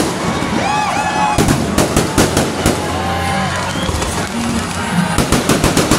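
Aerial fireworks bursting overhead in a dense run of bangs and crackles, heaviest about a second and a half in and again near the end.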